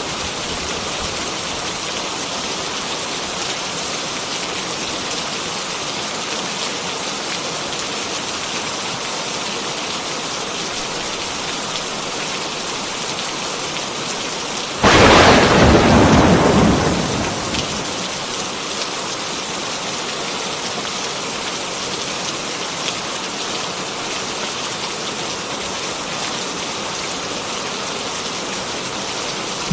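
Heavy rain falling steadily, with a sudden loud clap of thunder about halfway through that fades into a low rumble over two or three seconds.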